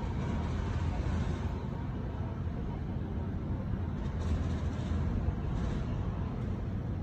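Steady low rumbling background noise with a few faint, brief hisses on top.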